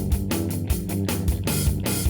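Background rock music with guitar and a steady, driving beat.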